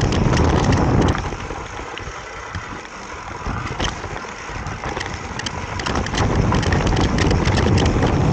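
Wind buffeting the microphone of a handlebar-mounted camera on a mountain bike rolling down a dirt and stony track, with many small clicks and rattles from the tyres and bike over the stones. The wind rumble drops about a second in and builds back up from around the middle.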